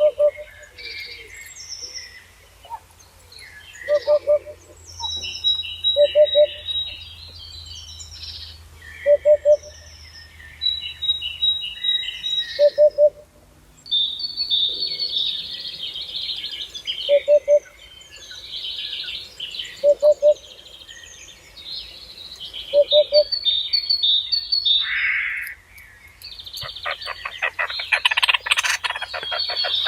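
Several birds singing together: high chirping phrases, and a low short call of two or three notes repeating every two to three seconds. Near the end comes a loud, fast rattling call.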